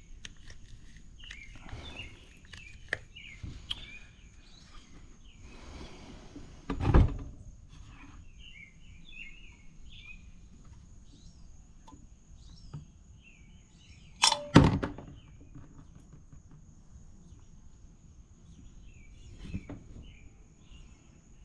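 Handling noise as a cut-open Toyota oil filter is pulled apart over a plastic drain pan, with two sudden thuds, about seven seconds in and, louder, about fourteen seconds in. Birds chirp faintly now and then.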